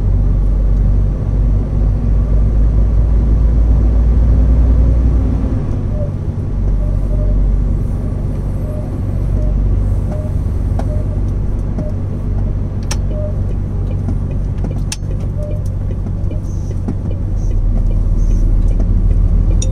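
Vehicle engine running steadily while driving, heard from inside the vehicle as a low, even hum. A soft regular ticking, about one and a half ticks a second, runs through the middle, and there are two sharp clicks later on.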